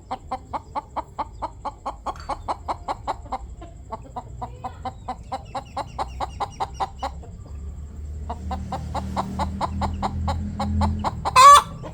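Chicken clucking in fast, even runs of short notes, about six a second, pausing briefly partway through and then starting again. Near the end comes one loud, sharp squawk. A low hum sits under the second half.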